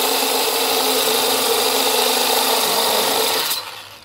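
Electric drill running a diamond core bit, grinding a hole through a granite slab with a steady, loud whine and grinding noise. The sound cuts off and fades away near the end as the drill stops and the bit is lifted out of the cut.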